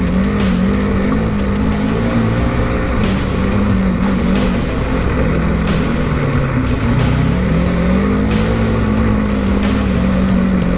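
Polaris RZR 900 side-by-side's parallel-twin engine running under way, its pitch rising and falling as the throttle is worked, with short knocks now and then.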